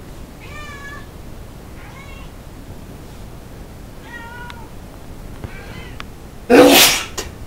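A cat giving four short meows a second or so apart, then one loud sneeze about six and a half seconds in, part of a sneezing fit.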